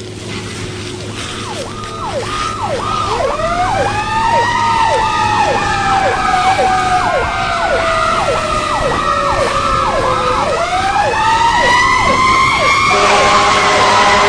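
Emergency-vehicle sirens overlapping. One sweeps down quickly, about twice a second, while a second slow wail rises, falls and rises again, over a steady engine hum. A steady multi-tone horn blast comes in about a second before the end.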